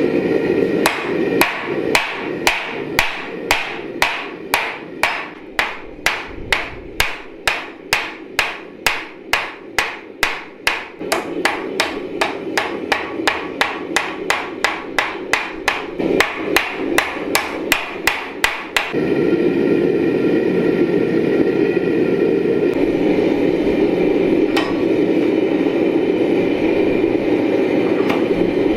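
Hand hammer striking hot steel on an anvil in a steady run of ringing blows, about three a second, drawing out a knife blade. The blows stop about two-thirds of the way through. The steady roar of a propane forge runs underneath and carries on alone after the hammering ends.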